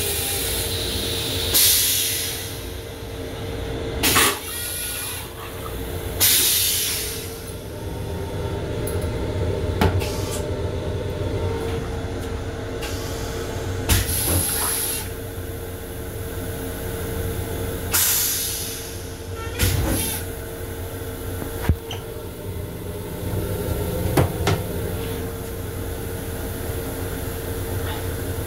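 LIRR M7 railcar toilet flushing, with several short bursts of hissing water spray and air. They sound over the steady low rumble and hum of the railcar.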